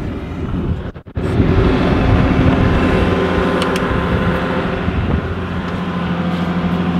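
Bobcat S595 skid-steer loader's diesel engine running steadily, with a short break in the sound about a second in.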